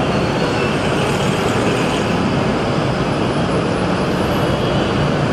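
Steady, even rumble and hiss of moving vehicles, with no distinct knocks or tones standing out.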